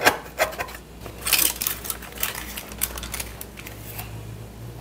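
Knife cutting through the crisp baked meringue shell of a pavlova: a run of sharp crackling clicks and crunches as the crust breaks, densest a little over a second in. The crunch is a good sign, showing a well-crisped meringue.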